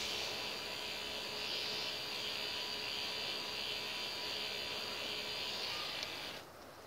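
K'NEX swing ride's motor and plastic gear train whirring steadily as the ride turns, with a faint steady hum underneath; a small click comes about six seconds in and the whirring stops abruptly just after.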